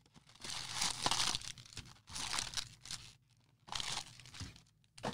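Cardboard box of 2020 Bowman Draft cards being torn open and handled: several short bursts of tearing and crinkling with brief pauses between them.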